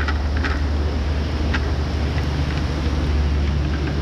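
Steady low wind rumble on the microphone over running river water, with a few light clicks as a cast net and its lead weights are lowered into a plastic bucket.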